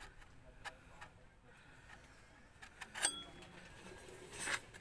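A few light metallic clicks and clinks of exhaust pipe parts and tools being handled. The sharpest click comes about three seconds in and rings briefly, and there is a short scuffing noise near the end.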